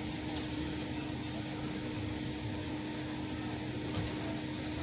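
City street background noise: a steady low traffic rumble with a constant mechanical hum running under it.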